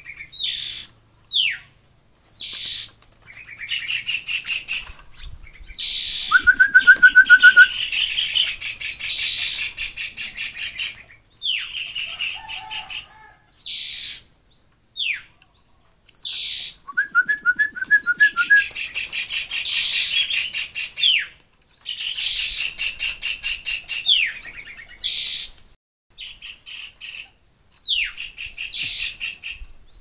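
Young Javan mynas (jalak kebo) begging while being hand-fed: runs of rapid, harsh high-pitched chattering calls several seconds long, broken by short pauses, with a couple of brief trills.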